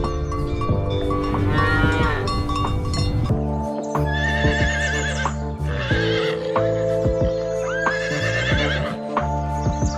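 Farm animal calling several times in wavering, quavering cries over steady background music.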